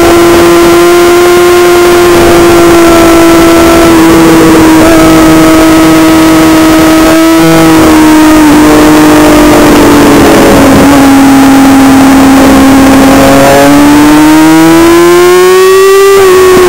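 Loud Suzuki GSX-R600 inline-four race engine held at high revs on the throttle, with heavy wind rush. The engine note holds steady, dips briefly about seven seconds in, sags a little through the middle, then climbs again near the end.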